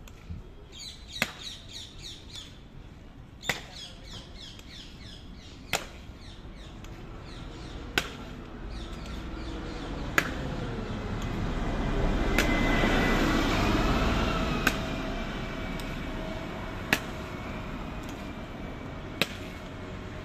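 Hobnailed tsarouchia shoes of a Greek Evzone guard striking stone paving in a slow ceremonial march, one sharp clack about every two seconds. Birds chirp in the first few seconds, and a passing vehicle swells and fades in the middle.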